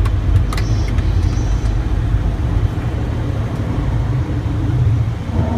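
Steady low rumble of an aircraft's engines and airflow heard from inside the cockpit, with a couple of faint clicks about half a second in.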